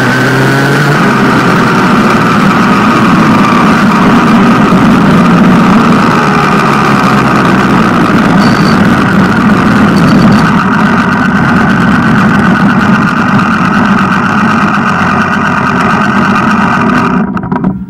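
Go-kart engine running loud and close, its pitch drifting slowly up and down, cutting off abruptly near the end.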